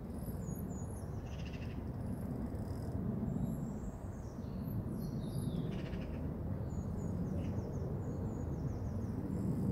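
Small birds chirping and calling in short, high notes over a louder, steady low rushing noise.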